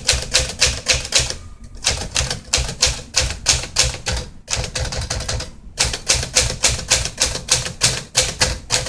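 A 1957 Smith Corona Silent Super manual portable typewriter being typed on: a quick run of key strikes, about five a second, broken by brief pauses about one and a half, four and a half, and nearly six seconds in.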